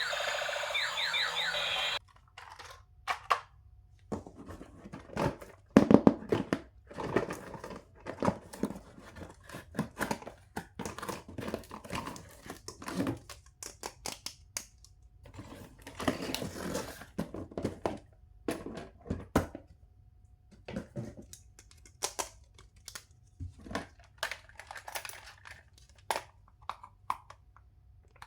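Music that cuts off about two seconds in, then irregular crinkling, crackling and tearing as toy packaging is handled and opened.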